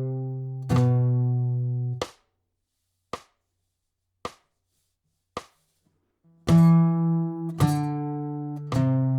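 Guitar playing a slow riff of low single notes on the A and low E strings: two ringing notes, then the strings go silent and three short, dead strokes come about a second apart, before ringing notes start again about six and a half seconds in.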